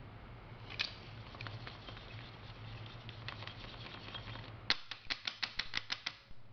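Plastic capsule-filling tray full of powder being jiggled and knocked, settling the powder into the capsules: light scattered clicks, then near the end a quick run of about ten sharp plastic clicks, about six a second.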